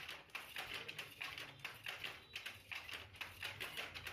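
Wooden handloom clattering: quick, irregular clacks, about four a second.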